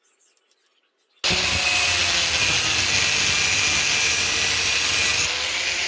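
A power tool starts abruptly about a second in and runs steadily under load on metal, with a harsh hiss and a steady motor tone.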